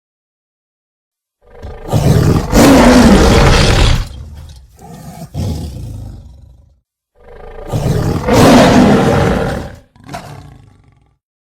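Cartoon demon cat's roars, built from big-cat roar sound effects. A long roar comes in about a second and a half in and trails off into shorter growls, a second long roar follows a few seconds later, and a brief one comes near the end.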